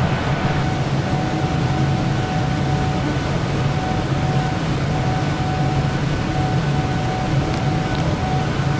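Steady loud rush of computer-room server racks and their cooling fans, with a low hum and a fainter steady whine on top.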